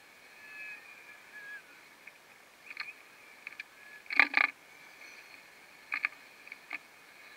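Sped-up room sound: a steady high hum with scattered sharp clicks and knocks. The loudest is a short cluster of knocks about four seconds in.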